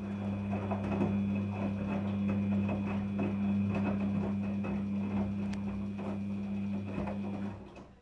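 Daewoo DWD-FT1013 front-loading washing machine turning its drum at tumbling speed: a steady motor hum with wet laundry and water splashing and knocking inside. The motor stops about seven and a half seconds in.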